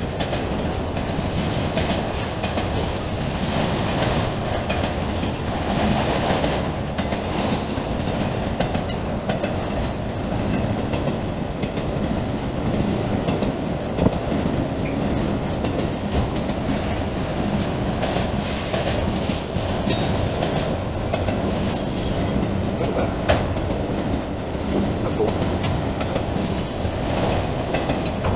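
Freight train of autorack cars rolling past at close range: a steady rolling noise of steel wheels on rail, with a couple of sharp clanks about halfway and two-thirds of the way through.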